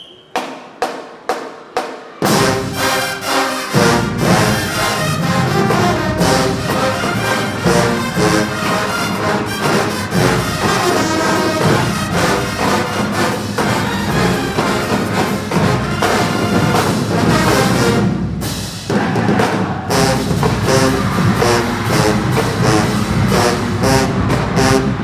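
Marching band playing loud: about six sharp drum strokes in the first two seconds, then the full band of brass and drums comes in together. The sound briefly thins about 18 seconds in before the full band comes back.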